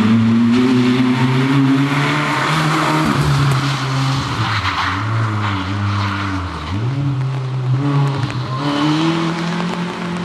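Opel Corsa rally car engine driven hard, its pitch climbing and dropping through gear changes and lifts, with a sharp dip about six and a half seconds in, under a hiss of tyre and road noise.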